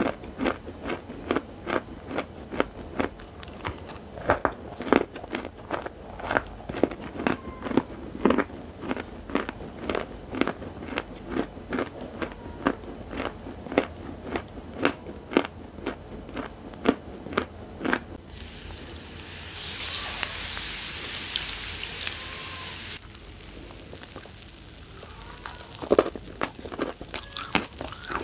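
Close-up crunching and chewing of dry crumbled chalk, sharp crunches several a second. About two-thirds of the way through, a steady hiss lasts about five seconds and cuts off suddenly, and the crunching starts again near the end.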